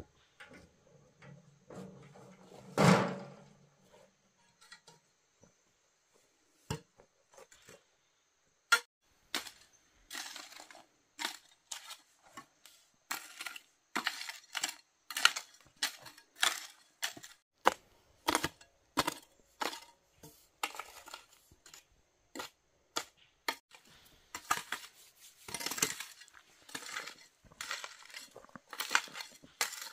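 Manual work with hand tools: a run of irregular scraping and knocking strokes, sparse at first and about one or two a second from about ten seconds in. A heavier thud comes about three seconds in and a sharp crack about nine seconds in.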